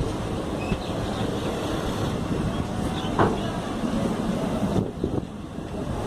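Express train running past at speed: a steady rumbling rush of coaches on the rails, with a brief sharp knock about three seconds in.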